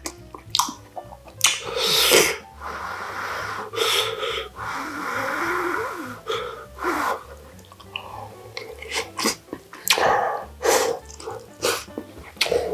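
Close-miked eating sounds: chewing and slurping mixed with sharp, breathy exhales and a few short clicks.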